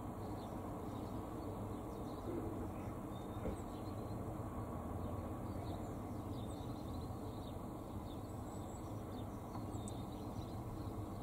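Steady low outdoor background noise with faint, scattered short high chirps from small birds at the feeder.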